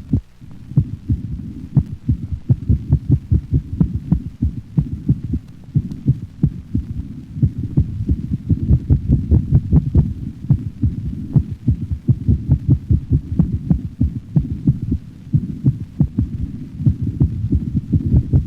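A dog's heart heard through a stethoscope in paroxysmal ventricular tachycardia: runs of rapid, evenly matched heartbeats alternate with stretches of a slower, normal rhythm.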